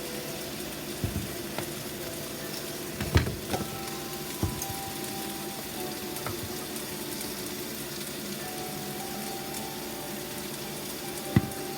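Pot of food simmering on the stove with a steady sizzle. A few sharp knocks break through, the loudest about three seconds in and another near the end.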